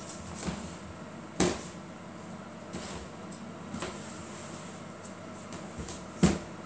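Knocks and light rustling of a woven storage basket and its woven lid being handled and fitted together, with two sharper knocks, one about a second and a half in and a louder one near the end.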